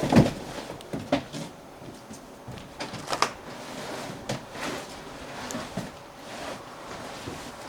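A few short knocks and bumps over low background noise. The loudest comes right at the start, and others follow about a second, three seconds and four seconds in.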